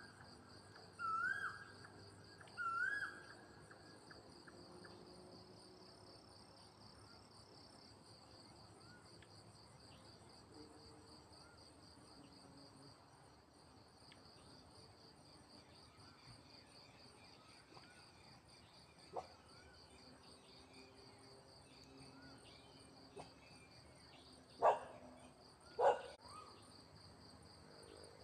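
Evening chorus of crickets and other insects by a pond, trilling steadily and high-pitched. Three short rising calls sound at the start, fainter rising chirps come in the middle, and two loud sharp calls come near the end.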